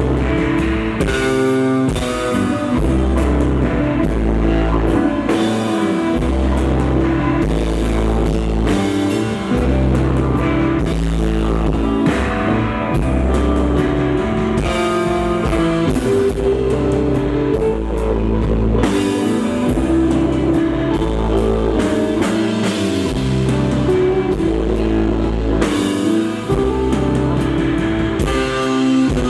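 A rock band playing an instrumental passage live: electric guitar, bass guitar and drum kit, with sustained low bass notes that change every couple of seconds.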